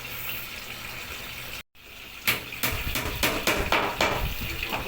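Steady running-water noise, cut off abruptly about a second and a half in, then a quick series of sharp knocks and clicks, roughly a dozen over the last two and a half seconds.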